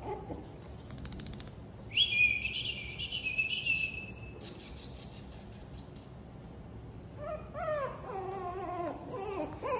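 Puppies whining: a loud high-pitched squeal of about two seconds, then a run of short falling whimpers near the end.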